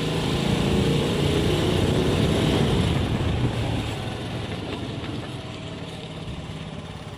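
A motor vehicle's engine running steadily, loudest over the first three seconds and then slowly fading.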